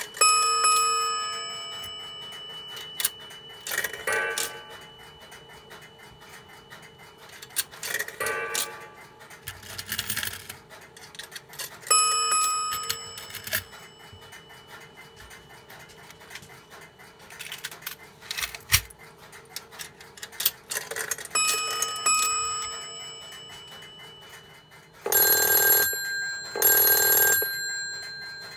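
Coins dropped into a Western Electric 1234G three-slot payphone strike its coin-signal bell and gong, giving several separate chimes that ring out and fade. Near the end the payphone's bell rings in two bursts, with the ringback tone from a monitor speaker on the line.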